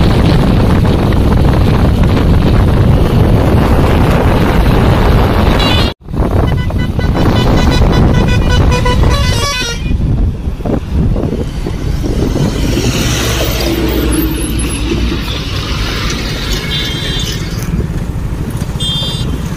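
Wind rushing over the microphone of a moving motorbike. After a cut come road traffic and vehicle horns honking: a run of beeps, then short toots near the end.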